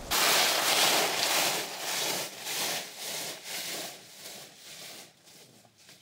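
Rhythmic dry rustling and scraping, about two strokes a second, that starts suddenly and fades away over several seconds.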